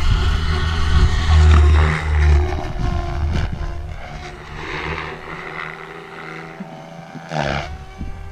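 Small radio-controlled 3D helicopter lifting off and flying away: steady rotor noise with a pitched motor and rotor whine that shifts up and down in pitch. It is loudest in the first two seconds, fades as it climbs off, and swells briefly again near the end as it comes back around.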